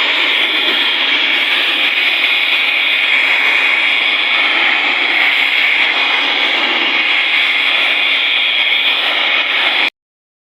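Handheld electric air blower running steadily at full speed, blowing dust out of an AC condenser coil; it stops abruptly near the end.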